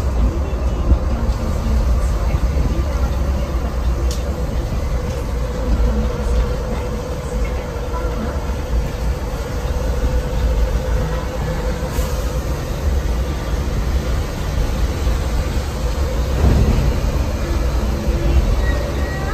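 Interior noise of a Mercedes-Benz OH 1626 coach cruising on the highway: a steady low rumble from the rear-mounted diesel engine and tyres, with a faint steady whine over it.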